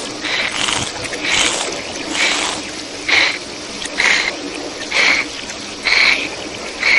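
Water hissing as it sprays from a leaking pipe, played backwards, surging louder about once a second.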